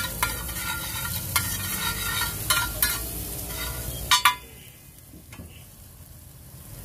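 Metal ladle scraping and clicking on a large flat iron tawa, stirring an egg mixture frying in butter, with a sizzle underneath. About four seconds in come two sharp metallic clinks, then the stirring stops and only a quieter sizzle is left.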